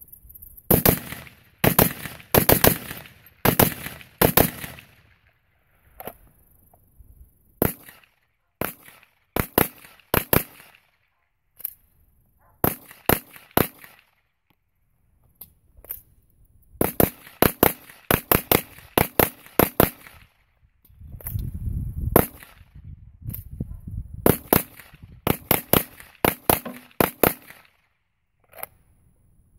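Battle Rifle Company BR308, a 12.5-inch AR-10-style short-barrelled rifle in 7.62x51 NATO/.308 with a four-chamber muzzle brake, firing rapid strings of shots, several shots to a string, with pauses of a second or two between strings.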